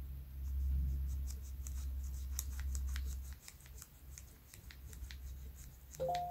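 Small clicks and scrapes of fingers handling the metal and plastic parts of a disassembled Daiso spinning reel's body and main shaft, over a low rumble. A short high squeak near the end.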